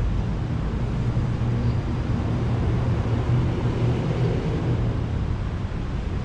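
Steady low rumble of traffic on the highway bridge overhead.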